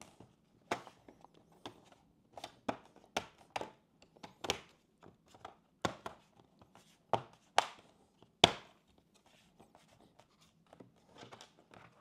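Plastic bottom cover of an Acer Nitro 5 AN515-58 laptop being pressed back onto the chassis, its edge clips snapping into place in a dozen or so sharp, irregularly spaced clicks. The loudest snap comes about eight and a half seconds in.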